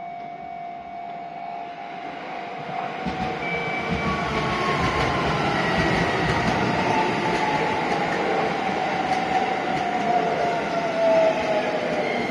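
Shin-Keisei N800-series electric train passing close by, its wheels rumbling and clacking over the rail joints, with a whine that slowly falls in pitch. It grows louder from about three seconds in as the train draws alongside.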